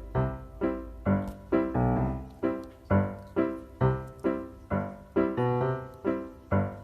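Background piano music: single struck notes, about two a second, each one fading out before the next.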